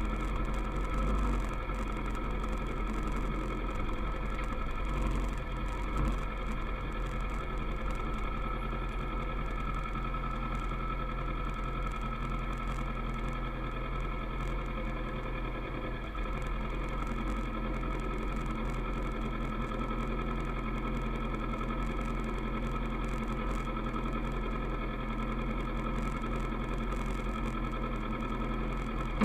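Kawasaki ER-6f motorcycle's parallel-twin engine running at a steady speed.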